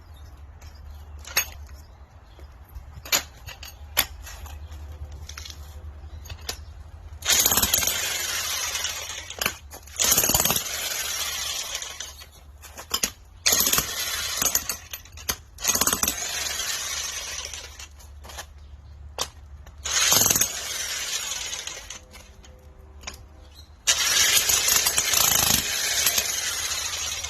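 Extreme Power US electric jackhammer hammering in about six bursts of one to three seconds each, with short pauses between them; before the first burst there are only a few scattered knocks over a low hum.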